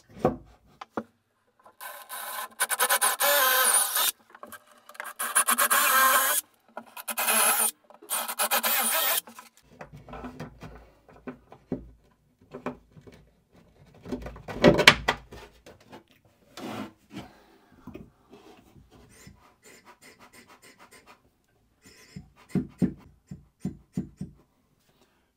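Power drill boring holes through a plywood panel in three bursts of about two seconds each. Then scattered clicks and knocks, with one louder thump midway, as bolts are pushed through to mount the toilet pump.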